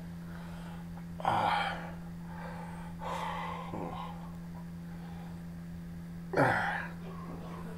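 A man's pained vocal outbursts from the burn of a very hot sauce: two loud gasping exhalations that fall in pitch, about a second in and again near the end, with quieter breathing between.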